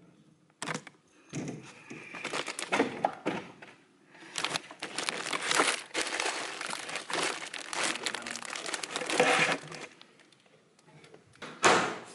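Rustling and crinkling of things being handled and shifted while someone searches through a cabinet, broken by small knocks and clicks, with a sharper burst of handling noise near the end.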